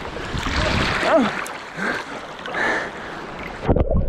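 Open water running and splashing, with heavy low thumps on the microphone near the end.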